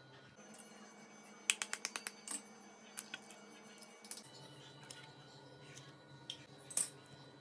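Kitchen utensil clicking: a quick run of about seven sharp taps about a second and a half in, then a few single taps.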